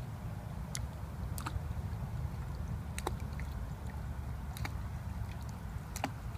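Lakeside ambience on a phone microphone: a low steady rumble with about five sharp little clicks or plops scattered through it.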